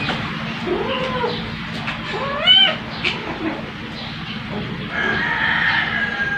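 Cat meows: a short rising-and-falling meow about a second in and a louder, higher meow about two and a half seconds in. Near the end a long, level, high-pitched call runs for nearly two seconds, over a steady low hum.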